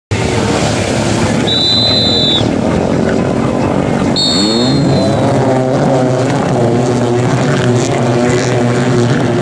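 Several racing jet-ski engines at a race start: engines running under noise, two high signal blasts, then about four seconds in the engines rev up together with a rising pitch and hold at high revs as the skis take off.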